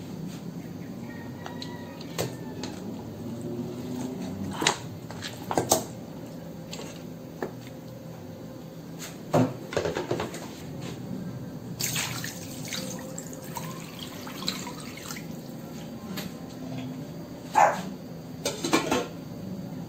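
Pork spare ribs being put into a stainless steel pot of water: scattered splashes and knocks of meat and water against the metal. Near the end a glass pot lid goes on with a clink.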